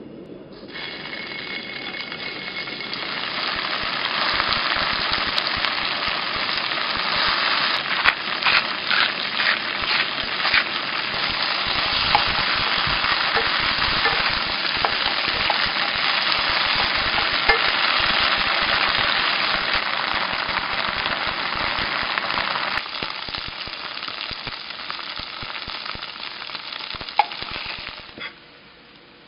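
Sticks of tofu pan-frying in perilla oil: a steady, dense sizzle with crackling, broken by sharp clicks of a spatula turning the pieces. The sizzle builds over the first few seconds, drops in level about two-thirds of the way through, and stops near the end just after a single sharp tap.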